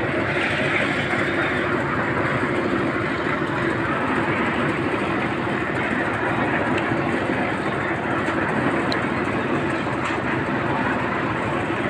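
Concrete mixer running steadily: an even, unbroken mechanical drone.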